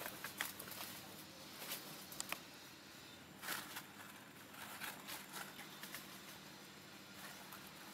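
Faint scattered rustles and light clicks of macaques shifting about on dry dirt and twigs, a few small flurries spread through, over a faint steady background hum.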